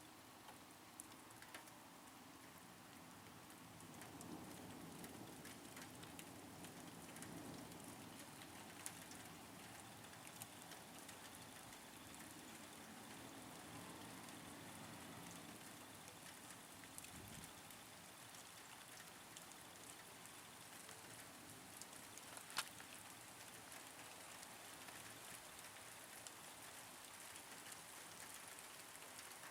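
Faint, steady light rain pattering, with scattered small drop ticks and one sharper click a little past the middle.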